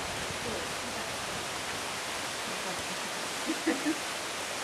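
A steady, even rushing noise with no rhythm, like running water or wind, with a few short, louder blips about three and a half seconds in.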